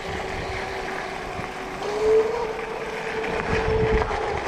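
Electric dirt bike's motor whining steadily, its pitch stepping up about two seconds in as it picks up speed, with wind rumbling on the microphone.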